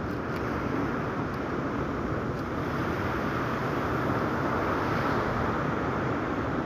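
Sea surf washing onto the shore in a steady rushing swell that grows a little louder around the middle, with wind buffeting the microphone.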